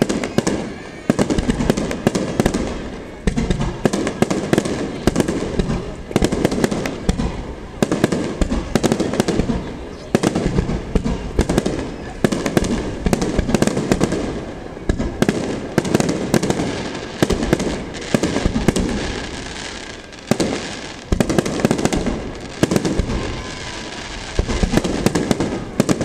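Fireworks display with aerial shells bursting one after another without a break: a heavy bang about once a second over a dense crackle of smaller reports.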